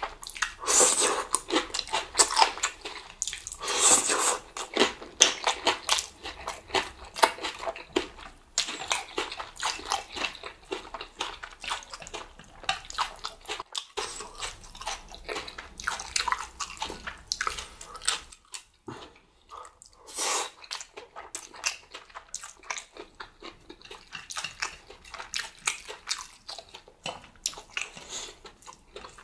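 Close-miked eating of Chapagetti black bean noodles: wet slurping and chewing, a rapid irregular run of smacks and clicks with short pauses between mouthfuls.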